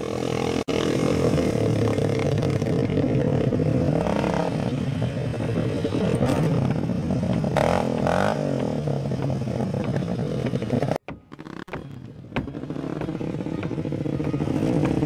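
Quad (ATV) engines running and revving, their pitch rising and falling as the riders work the throttle over the sand track. The sound drops out briefly about eleven seconds in.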